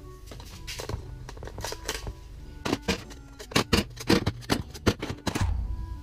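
Plastic Toshiba air-conditioner remote controls clacking against each other and the bench top as they are picked up and set down, a rapid irregular run of sharp clicks and knocks.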